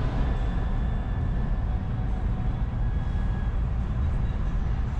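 Steady in-cabin engine and road noise of a 1962 Chevrolet Greenbrier camper van cruising at highway speed: its air-cooled Corvair flat-six and tyres making an even, low drone.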